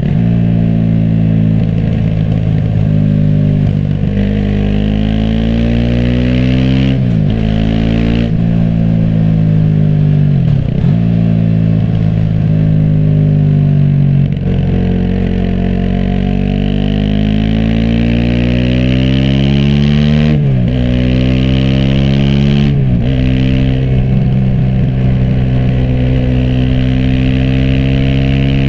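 Aprilia SX 125's single-cylinder four-stroke engine through an Arrow racing header and Thunder slip-on exhaust with dB-killer, pulling under acceleration: the pitch climbs through each gear and drops sharply at each upshift, about seven times.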